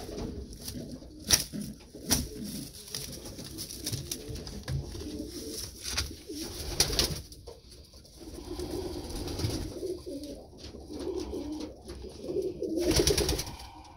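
Pigeons cooing, strongest in the second half, with sharp clicks and rustling of nesting straw and a plastic tray being handled, the loudest click about a second in.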